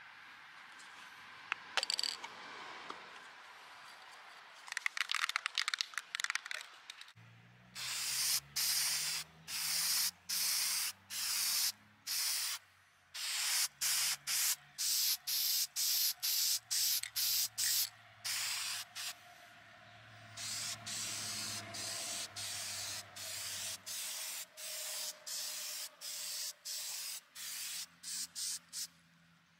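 Aerosol can of Rust-Oleum Farm & Implement spray paint, first shaken so its mixing ball rattles in a few short clicking runs, then sprayed in dozens of short hissing bursts, each about half a second long with brief pauses between them.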